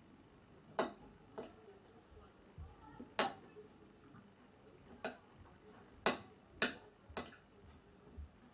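A metal fork clinking against a dinner plate while eating: about seven sharp, irregular clinks, the loudest two close together about six seconds in.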